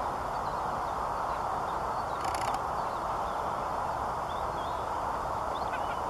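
Steady rushing background noise, with faint, short high bird chirps now and then and a brief rustle about two seconds in.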